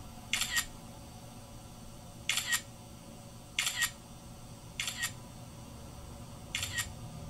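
Camera shutter firing five times, a second or two apart; each shot is a quick double click.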